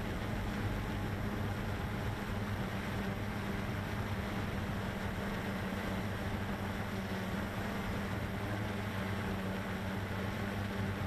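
CX-20 quadcopter's motors and propellers humming steadily in flight, a constant low drone over a hiss, with no change in pitch.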